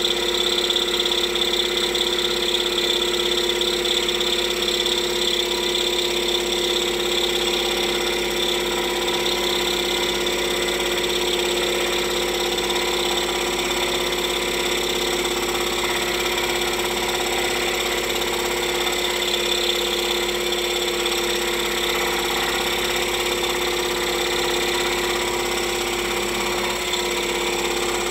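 Scroll saw running steadily, its reciprocating blade cutting through a thick block of wood along a chain-link pattern.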